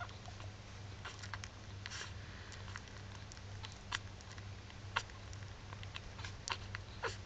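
Newborn Staffordshire bull terrier puppies suckling from their mother: scattered soft wet clicks and smacks, a few sharper ones about four and five seconds in, over a steady low hum.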